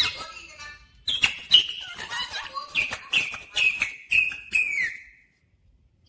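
Pet parakeet whistling a quick run of short notes, several dropping in pitch at the end, with sharp clicks in between; it stops about a second before the end.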